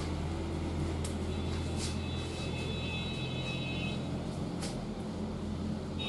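Steady low droning room hum, with a faint high whine for a couple of seconds in the middle and a few soft clicks.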